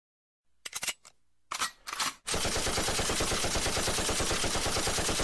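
A few separate gunshots, then a long unbroken burst of rapid automatic machine-gun fire.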